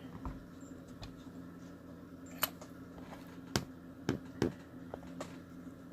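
A few scattered small metallic clicks and taps from a small mortise lock cylinder and its key being handled in a vise, the sharpest about two and a half and three and a half seconds in, then two more close together after four seconds.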